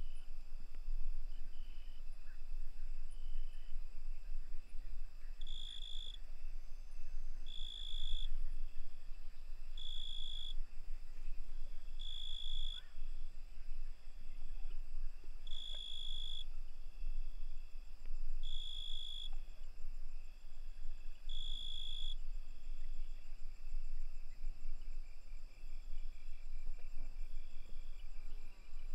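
Night chorus of crickets trilling steadily. Over it, a louder high-pitched call of about half a second repeats every two to three seconds, about seven times, over a low steady rumble.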